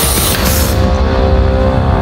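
Kärcher K4 pressure washer's water jet spraying against a wall with a loud hiss that cuts off about three-quarters of a second in.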